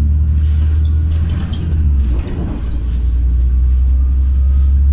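Low, steady drone inside the cabin of a moving LiAZ 5292.67 city bus, from its YaMZ-53624 compressed-natural-gas engine and drivetrain under way, dipping briefly about two seconds in.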